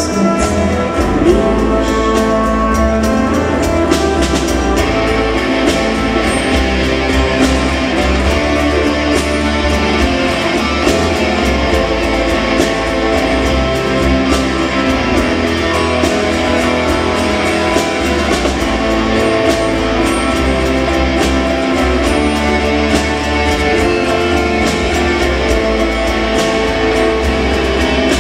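Live country band playing through a PA: amplified guitars, fiddle, bass and drums over a steady beat.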